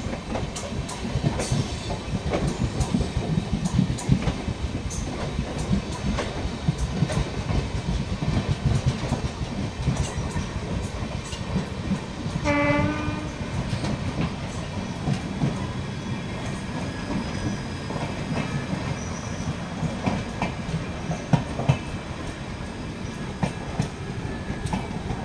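Indian express passenger train running at speed, heard from an open coach doorway: a steady rumble with irregular clatter of wheels over rail joints. About halfway through, a locomotive horn sounds once, briefly.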